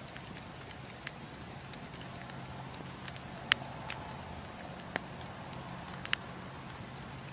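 Wood campfire burning, with scattered sharp crackles and pops from the burning logs, the loudest pop about halfway through, over a steady low hum.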